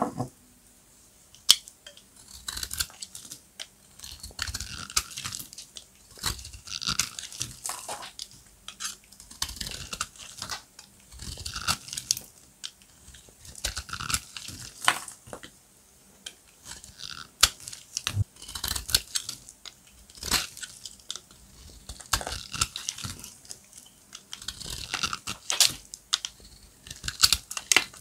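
Dry, hard soap being cut and crunched: repeated crisp crackling crunches every second or two, with sharp snaps among them.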